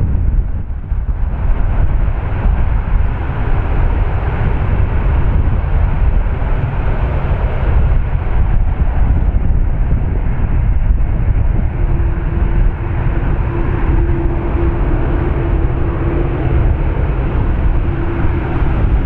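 Boeing 747-8's four GEnx-2B jet engines running, a loud, steady rumble with a faint steady hum joining in about two-thirds of the way through.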